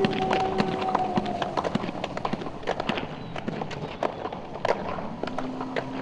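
Skateboard clatter: a dense, irregular run of clicks and knocks from the board and wheels, growing somewhat quieter in the second half.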